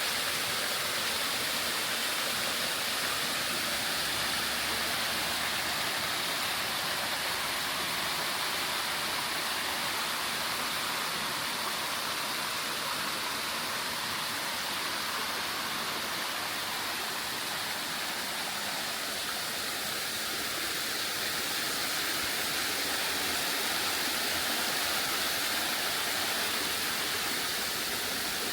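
Waterfall: water falling and splashing in a steady, unbroken rushing noise.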